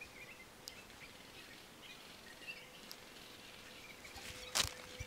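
Faint bird chirps over a quiet woodland background. About four and a half seconds in there is a loud, brief rustle as a plastic tarp wall brushes against the camera.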